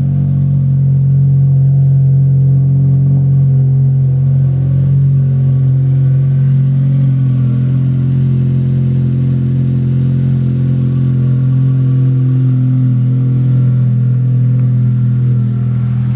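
A 9th-generation Honda Civic Si's 2.4-litre four-cylinder engine, fitted with an open cone-filter intake, idling steadily just after start-up on freshly changed oil, sounding good.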